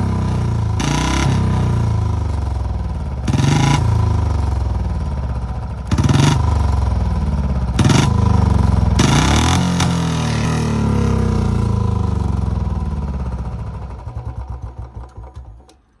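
Royal Enfield Bullet BS6 single-cylinder engine running and revved in several short blips, then cutting out and running down to a stop near the end. The kill-switch trick to make it backfire fails: no pops, the engine just shuts off.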